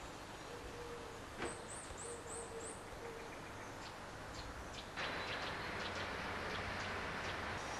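Birds call over a quiet background: a low hooting note in short broken stretches and a quick run of five high chirps about two seconds in. About five seconds in, a truck's engine and road noise come up and take over as the loudest sound.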